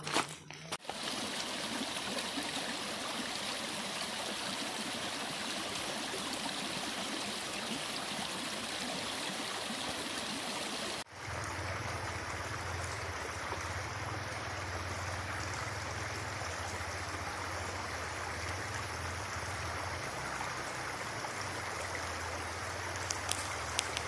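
Shallow rocky mountain stream running over stones, a steady rush of water. The sound cuts about eleven seconds in, and a low rumble joins the water after it.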